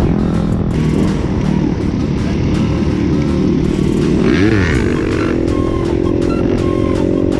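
Dirt bike engines running at road speed, with wind buffeting the microphone. About four and a half seconds in, one engine revs up sharply and drops back.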